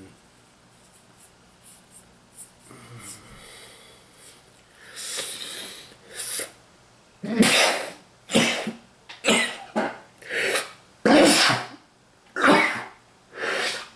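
A man coughing into his elbow: after a few quiet seconds and a breath, a run of about seven harsh coughs roughly a second apart, filling the second half.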